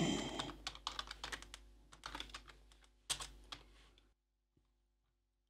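Typing on a computer keyboard: a quick, uneven run of key clicks that stops about four seconds in.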